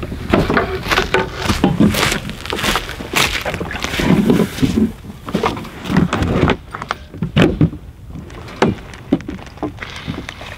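Gear being loaded and shifted around inside a canoe: irregular knocks, clunks and rustling against the hull, with a few heavier thuds about four seconds in.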